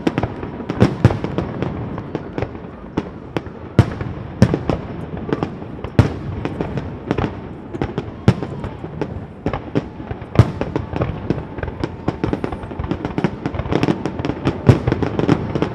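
Aerial fireworks bursting overhead in a rapid barrage: sharp bangs come several a second over a continuous crackle and rumble of shells.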